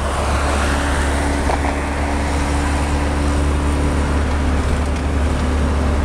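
Road and engine noise heard inside a moving car's cabin: a steady low rumble with tyre hiss at cruising speed.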